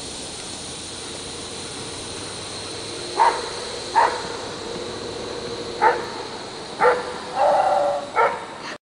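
A dog barking in single short barks, five in all from about three seconds in, with a longer drawn-out call between the last two, over a steady hiss; the sound cuts off abruptly just before the end.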